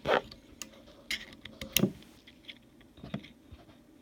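A few separate light clicks and taps of small metal rifle parts and a screwdriver being handled while a part is worked into place.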